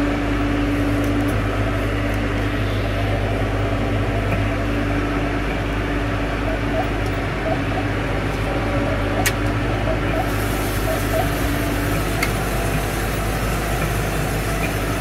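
John Deere 6110M tractor's diesel engine running steadily, heard from inside the cab as it drives across a field. It is a constant low drone with a held mid-pitched tone that fades out about nine seconds in.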